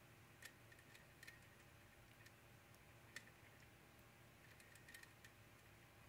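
Faint, scattered small clicks from a magnetic cam lock being picked with a magnet on a stick, about eight irregular ticks over a low room hum.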